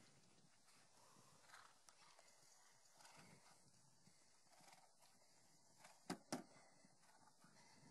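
Near silence with faint outdoor background, broken about six seconds in by two sharp knocks a quarter second apart from a horse's hooves as it jumps a log fence.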